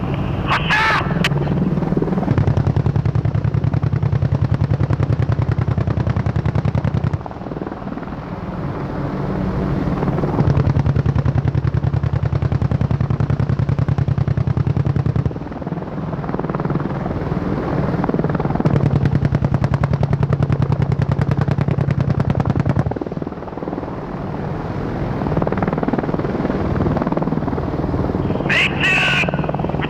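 AH-64 Apache attack helicopter's 30 mm M230 chain gun firing three long bursts of about four to five seconds each, a few seconds apart, over the steady sound of the hovering helicopter's rotor and engines.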